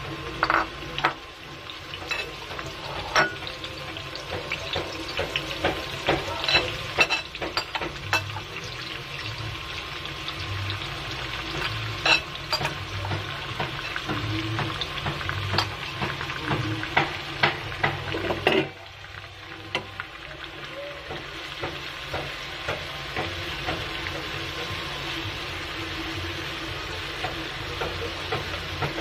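Spice-coated prawns frying in hot oil in a wok: a steady sizzle with frequent sharp pops and crackles of spattering oil. About two-thirds of the way through it settles into a smoother hiss with fewer pops.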